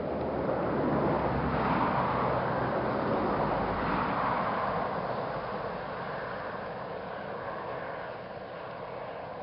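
Steady rushing outdoor background noise that swells over the first two seconds and slowly fades away.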